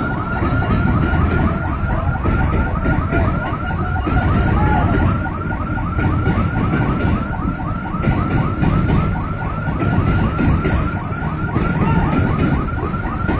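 Rapid chirping warning alarm, about five short rising chirps a second, from the mobile cranes handling a precast concrete girder, over the steady low rumble of the crane engines.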